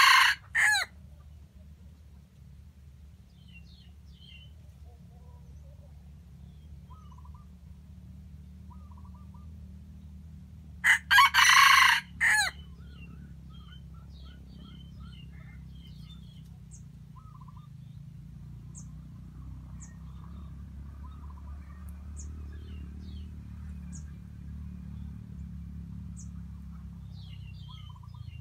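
Red junglefowl rooster crowing: one loud, short crow about eleven seconds in, with the end of an earlier crow right at the start. Small birds chirp faintly in between, over a steady low rumble.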